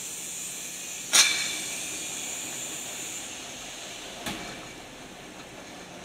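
Automatic rotary bottle rinsing machine running, with a steady hiss from its rinse jets and two sharp clanks: a loud one about a second in and a smaller one about four seconds in.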